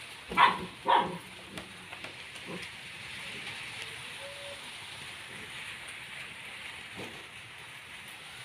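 A dog barking twice in quick succession near the start, over a steady hiss.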